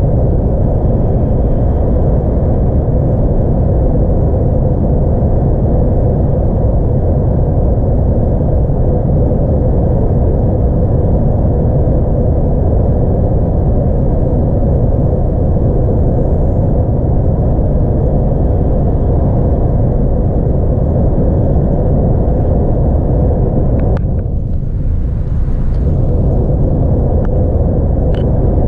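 Steady low drone inside the cab of a 2017 DAF XF 106 truck running heavily loaded at about 41.6 tonnes on the motorway: the diesel engine's rumble mixed with tyre and road noise. There is a sharp click and a brief dip in the drone about 24 seconds in.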